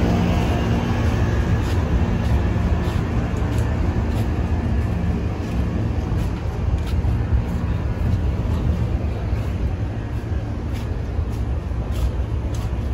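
Steady low hum of outdoor air-conditioning units serving the tent camp, with faint footsteps on the paving.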